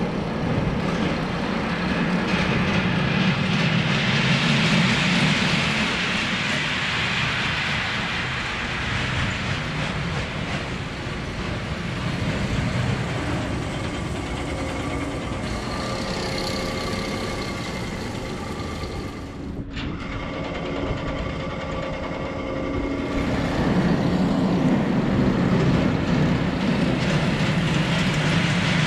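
E&F Miler kiddie roller coaster train running on its steel track: a steady rumble and rattle that swells louder near the start and again near the end as the train passes close. The sound drops out for a moment about two-thirds of the way through.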